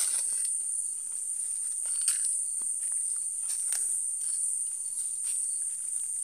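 Night insects chirring in one steady high-pitched drone, with faint scattered footsteps.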